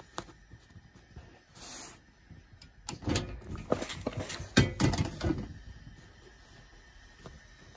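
Handling sounds of sewing work at a pressing surface: fabric rustling and light clicks, then a cluster of louder knocks and thumps in the middle as a clothes iron is set down on the fabric and moved.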